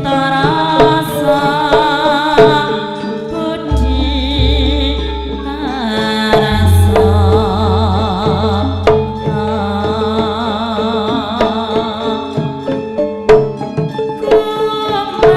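Javanese gamelan playing a Tayub gending. A female singer (sinden) sings with a wide vibrato over hand-drum strokes and metallophones. Deep low tones ring out about four and again about seven seconds in.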